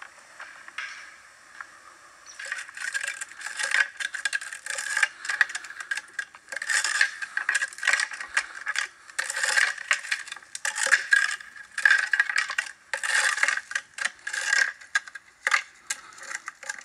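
Elk antler raked and scraped against a pine trunk and dry branches, in irregular rattling strokes about one or two a second, starting a couple of seconds in: tree-raking that imitates a bull elk rubbing.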